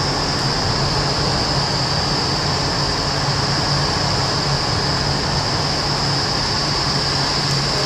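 Indoor vertical wind tunnel running with a flyer in the airflow: a loud, steady rush of air from its fans, with a constant high hiss and a low hum beneath it.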